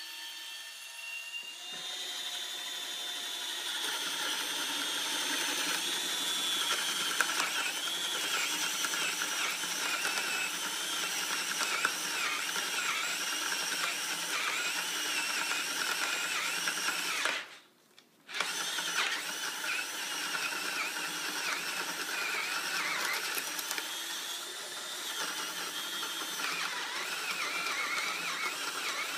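Festool CXS compact 12-volt cordless drill driver boring into wood with a 1-inch spade bit, the motor whining under load with its pitch wavering as the bit bites. It stops for about a second past halfway, then runs on.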